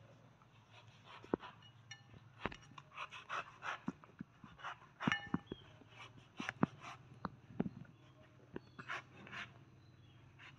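A knife cutting and prying the thick rind off a large green fruit: a run of irregular, crisp cuts and snaps.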